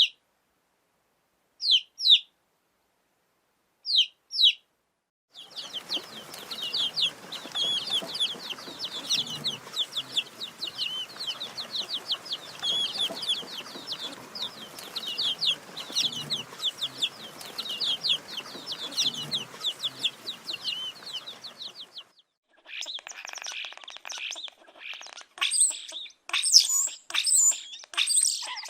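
Baby chicks peeping. First come a few short pairs of high, falling peeps with silence between them. From about five seconds in, many chicks peep together without a break over a background hiss. Near the end a different recording starts, with louder, higher peeps and clicks.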